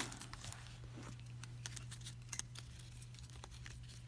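Faint, scattered light clicks and flicks of cardboard trading cards being handled and thumbed through by hand, over a low steady hum.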